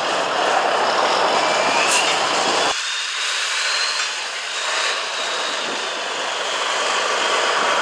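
Tatra 815 8x8 trial truck's engine running under load as it crawls through deep mud, with a faint high whine rising and falling. About a third of the way in the sound abruptly loses its deep low end and turns thinner.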